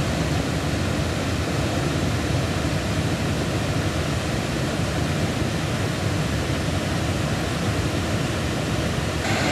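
Steady rushing noise of a large waterfall, an even wash of falling water with no let-up. Near the end it turns hissier and a little louder.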